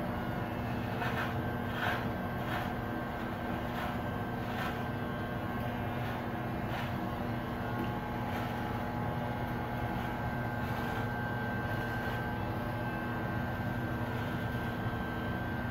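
Electric hair clippers running with a steady buzz, with faint scratchy strokes every second or so as they pass over the hair.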